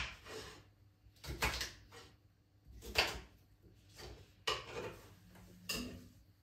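Kitchen knife cutting green asparagus stalks into pieces on a cutting board: a sharp knock roughly every one and a half seconds.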